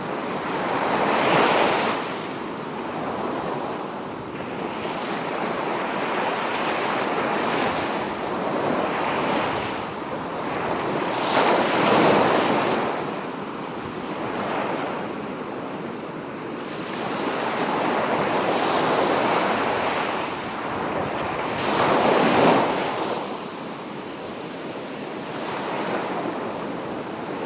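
Sea waves washing in: a steady rushing surf that swells and fades, peaking about every ten seconds.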